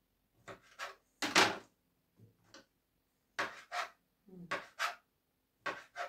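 Knife slicing a lemon on a cutting board: a run of irregular cuts and knocks on the board, the loudest about a second and a half in.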